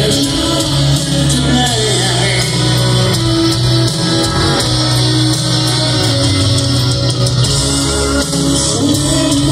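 Live rock band playing a slow power ballad: electric guitar and piano with the full band, loud and continuous, as heard from the crowd at an open-air concert.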